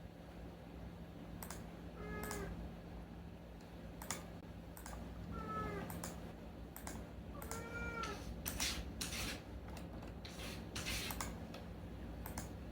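A domestic cat meowing three times, short arching meows a few seconds apart. Scattered clicks and rustling noises run around them over a steady low hum.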